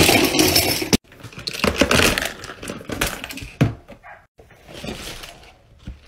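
A jumble of small plastic fidget toys clattering and rattling as they are tipped out of plastic storage bins. The loudest spill comes in the first second, a second longer spill runs from about one and a half to three and a half seconds, and a softer one follows.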